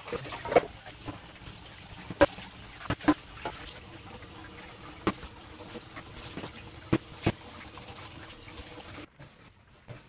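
Tap water running into a stainless steel sink while a saucepan is washed by hand, with about seven sharp clanks of the pot and dishes against the sink. The running water cuts off suddenly near the end.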